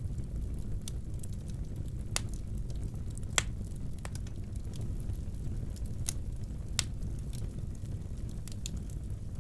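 Fire burning in a fireplace: a steady low rumble with scattered sharp wood cracks, the loudest about two, three and a half and seven seconds in.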